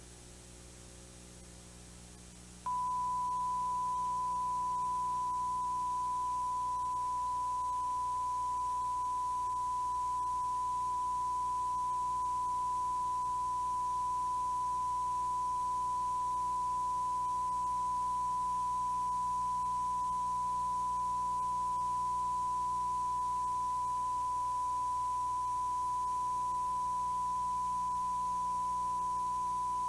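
Quality-control reference test tone recorded at the end of a VHS tape: one steady pure tone that starts suddenly about three seconds in, over faint tape hiss and hum. It is a deliberate reference signal, not a fault.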